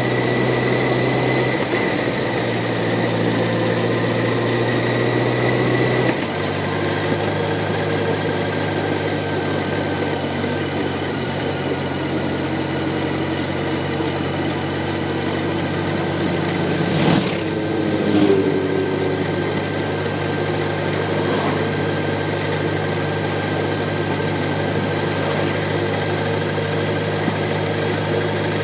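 BMW K1100LT motorcycle's inline-four engine running at low road speed, a steady hum that steps in pitch about one and a half and six seconds in, over an even rush of wind and road noise. A brief sharp sound cuts through about seventeen seconds in, with a smaller one a second later.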